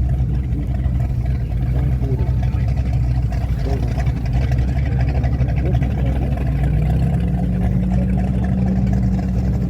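Motorboat engine running steadily at low speed as a classic boat passes in the parade, with a deep, even drone; a slightly higher steady note joins in about two-thirds of the way through.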